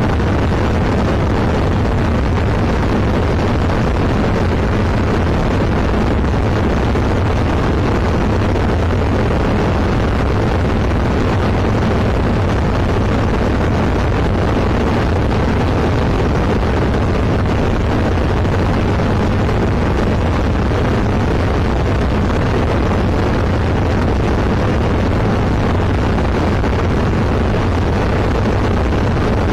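Zenith CH701 light aircraft's engine and propeller running steadily in flight, with wind rushing past, heard inside the cockpit. A constant low drone that does not change.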